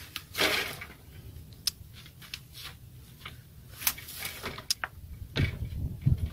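Scattered light clicks and knocks from a bicycle being handled, with a brief rustle about half a second in.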